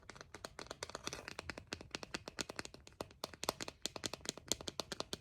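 Rapid, irregular tapping: many sharp clicks a second, close to the microphone, as of fingers or nails tapping on a small object.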